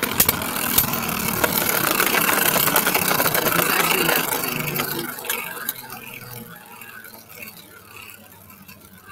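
Beyblade Burst spinning tops whirring and clashing in a plastic stadium: a few sharp hits near the start, then a steady whir that fades after about five seconds as the tops slow.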